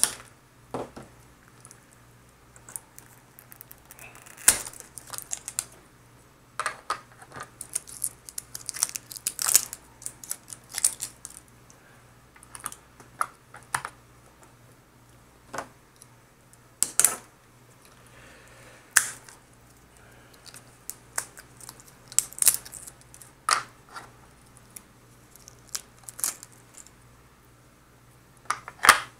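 Plastic clicks, taps and rattles from a handheld digital multimeter's battery compartment as AAA batteries are fitted into it: irregular sharp clicks scattered throughout, over a faint steady low hum.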